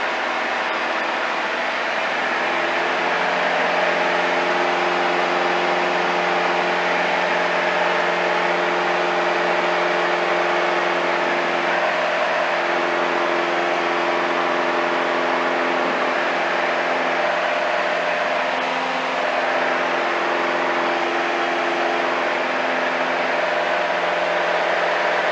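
Cabin noise of a single-engine light aircraft in level cruise: a steady drone of the piston engine and propeller over rushing airflow. It grows slightly louder about three seconds in.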